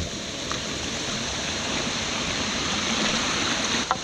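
Steady rush of a rocky creek's water flowing and tumbling over stones, with a faint click near the end.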